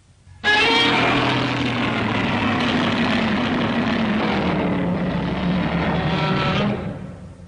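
A machine-like sound effect from the 1984 Godzilla film: a steady, dense mechanical noise with a faint whining tone running through it. It cuts in suddenly about half a second in and fades out near the end.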